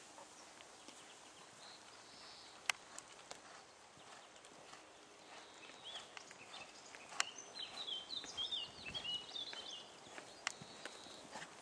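Horse's hooves cantering on a sand arena, with a few sharp clicks. A small bird twitters for a couple of seconds a little past halfway.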